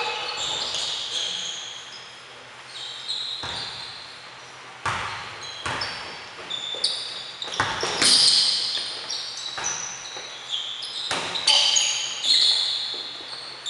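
Basketball bouncing on a hardwood gym floor, a scatter of irregular thuds, with sneakers squeaking in short, high chirps as players cut and stop. The hits echo in the large gym.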